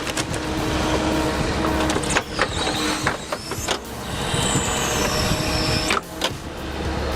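Heavy machinery running with a steady hum, broken by several sharp cracks and knocks, and a high whine that falls in pitch about halfway through.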